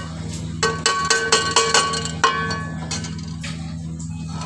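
A metal spoon tapped about six or seven times against the rim of a steel cooking pot, each tap ringing, the last the loudest; the strikes come in the first half and a steady low hum runs underneath.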